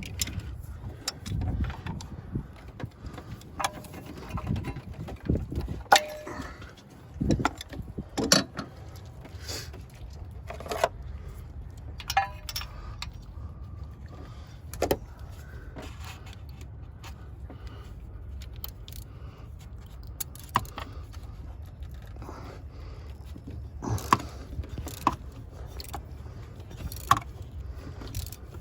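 Hand tools and metal parts clinking and clicking during spark plug work in a car engine bay: irregular sharp clicks, some ringing briefly like metal on metal, most frequent in the first half, over a steady low rumble.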